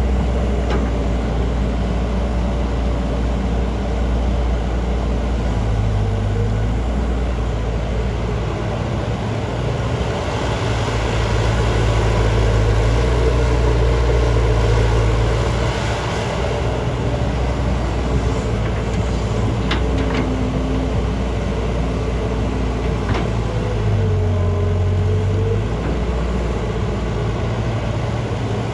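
JCB JS205 excavator's diesel engine running steadily while digging, its note rising and falling, with a few sharp knocks about two-thirds of the way through.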